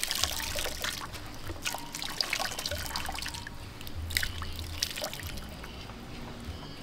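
Coconut milk pouring and trickling from a strainer into a large aluminium pot of liquid, with many small splashes and drips; the flow thins out about halfway through.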